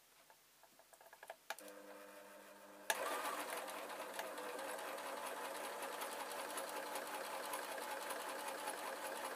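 Singer sewing machine stitching a straight seam. A few clicks come first, then the motor starts slowly about a second and a half in and runs steadily at a faster speed from about three seconds in.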